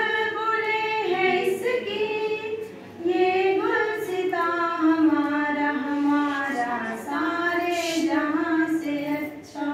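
A woman singing a slow melody unaccompanied into a microphone, long held notes in phrases with short breaks about three and seven seconds in.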